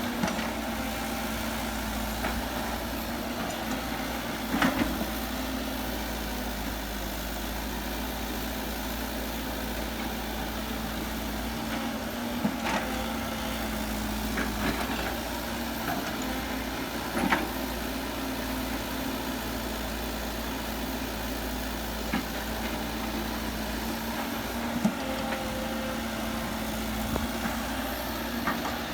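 Heavy earthmoving machinery's diesel engine running steadily. Scattered sharp knocks sound over it, the loudest about five seconds in and again about seventeen seconds in.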